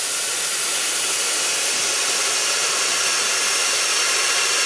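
Compressed air hissing loudly and steadily at the 1972 Chevelle's rear air-shock valve, cutting off sharply near the end; the air shocks leak badly.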